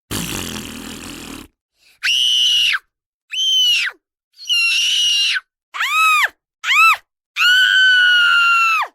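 A rough, throaty grunt, then a run of six high-pitched shrieking screams starting about two seconds in, each falling off at its end, the last one long.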